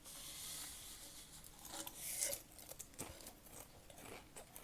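Faint rustling and rubbing with a few light clicks scattered through, the loudest rustle about two seconds in.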